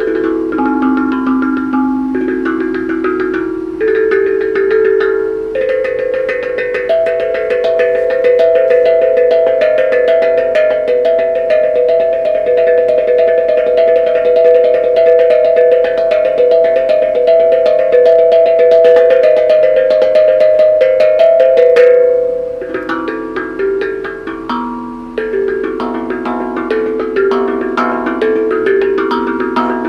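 Tuned percussion instrument struck in a melody. From about seven seconds in it plays a fast roll on two held notes, and near the end it returns to separate melodic notes.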